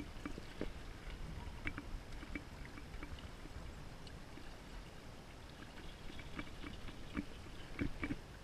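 River water slapping and gurgling against the tubes of an inflatable pontoon boat, with irregular small clicks and knocks scattered through it, most of them near the start and again near the end.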